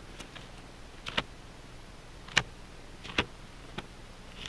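Pages of a Bible being turned and handled on a pulpit: a handful of short, crisp ticks a second or so apart, over a faint steady hum.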